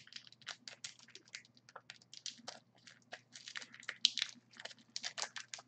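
Faint, irregular crinkling and small clicks of packaging being handled as a pack of trading cards is worked open.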